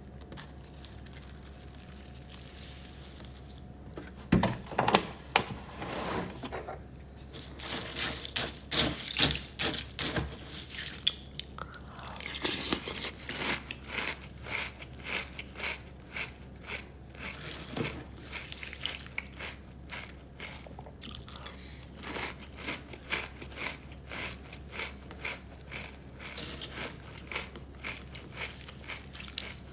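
Close-miked mukbang eating: crunchy bites and chewing of a snack. The crunching is loudest from about a quarter to halfway through, then settles into a steady rhythm of chews.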